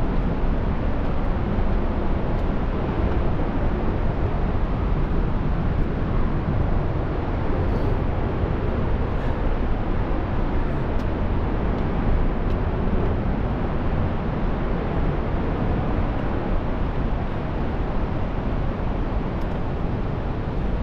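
Steady, even rushing noise, heaviest in the low end, with no breaks or changes.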